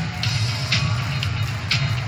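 Music with a heavy bass beat and a sharp snare-like hit about twice a second.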